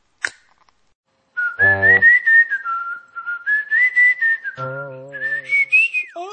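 Someone whistling a short tune: one clear tone stepping up and down between a few notes, rising at the end and then sliding quickly down. Twice, a lower droning tone sounds briefly beneath it.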